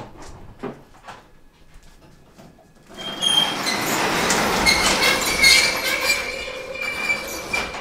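A large shop door being rolled shut, starting about three seconds in: a loud rattling, rolling noise with a thin squeal over it.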